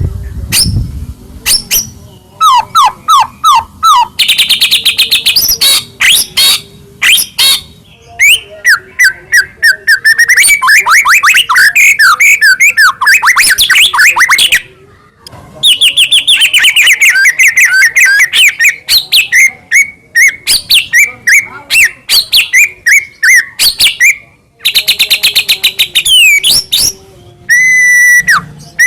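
White-rumped shama singing loudly and continuously in long runs of rapid repeated notes and quick falling whistled trills, with a couple of brief pauses.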